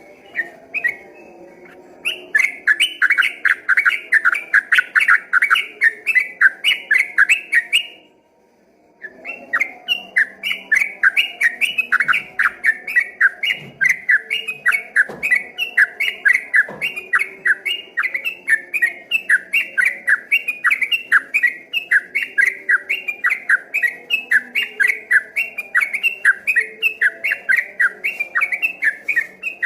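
Yellow-vented bulbul (trucukan) singing a long, fast run of repeated notes, its rapid 'ropel' song. The run breaks off for about a second near the middle, then starts again and keeps going.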